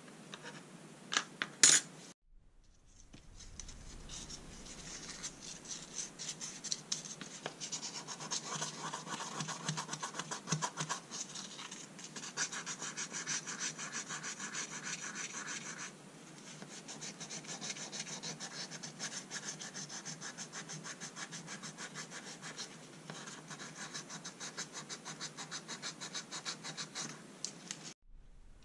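A few sharp clicks of small metal parts being handled, then a long run of fast, rhythmic scratching as P400 abrasive cloth is rubbed back and forth by hand over small nickel-plated steel parts to clean them.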